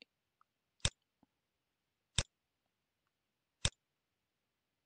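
Three single computer mouse-button clicks, about a second and a half apart, with near silence between them.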